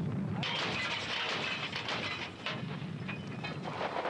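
Combat sound on old archival field footage: a steady rumbling noise broken by many irregular sharp cracks of gunfire. About four seconds in it gives way to a denser steady hiss.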